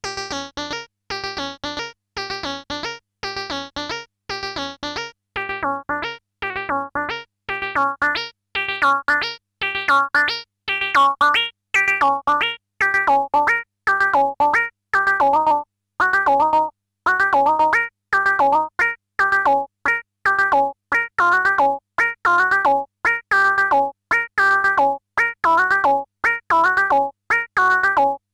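PolySub, a polyphonic virtual-analogue synth patch on the Rebel Technology Wizard, plays a fast step-sequenced pattern of short, staccato notes. Turning its resonant filter and waveshape knobs changes the tone: the notes grow brighter and louder from about six seconds in, and their timbre keeps shifting after that.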